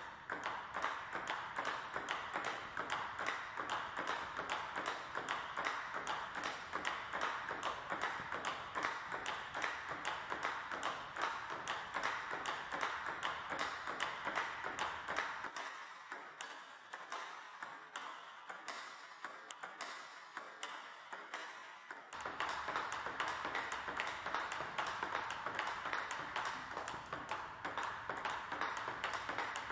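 Table tennis balls clicking off paddles fitted with Butterfly Dignics rubber and bouncing on the table during forehand topspin drills, a quick, steady run of many sharp ticks. The hits grow quieter for a few seconds just past the middle, then pick up again.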